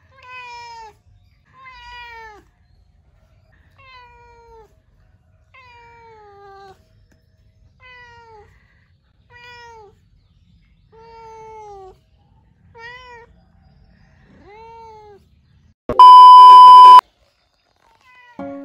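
A white-and-ginger domestic cat meowing about nine times, one to two seconds apart, each call mostly falling in pitch, asking for food. Near the end comes a loud steady beep lasting about a second.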